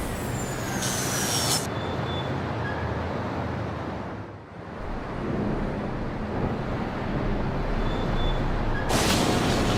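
Steady rumbling vehicle noise, briefly dropping away about halfway through and brighter near the end.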